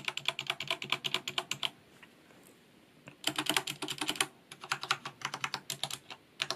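Corsair K68 RGB mechanical keyboard with Cherry MX Red linear switches being typed on fast in quick runs of keystrokes, with a pause of about a second near the middle and shorter breaks after it.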